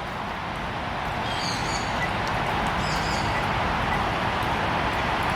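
Outdoor ambience: a steady rushing noise that swells slightly, with a few brief, high bird chirps about one and a half and three seconds in.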